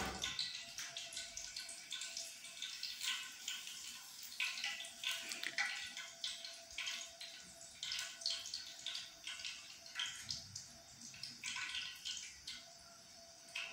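Water splashing and dripping in irregular spurts, as when water is drained off and things are rinsed at a sink. A faint steady hum runs underneath.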